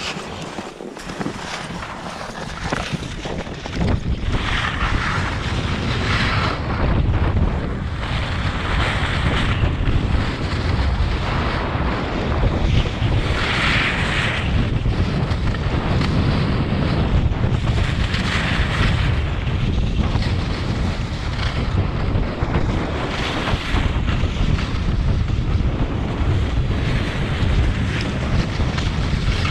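Wind buffeting the microphone of a skier running downhill, a low rumble that builds over the first few seconds, with the hiss of skis carving across packed snow swelling at each turn, about every four to five seconds.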